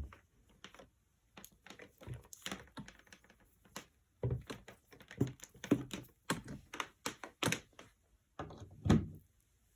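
Irregular clicks and knocks of hard objects being handled, about a dozen at uneven spacing, with a heavier knock near the end.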